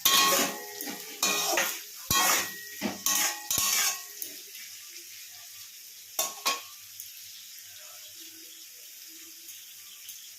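A spatula scraping and knocking against a kadai in a quick run of strokes for about the first four seconds, with one more stroke about six seconds in, as vegetables are stirred in the pan. Underneath, a faint sizzle of onion and capsicum frying in oil.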